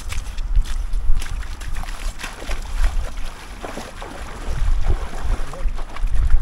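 Wind buffeting the microphone in a steady low rumble, with rustling and scattered irregular clicks and knocks of handling at the rod.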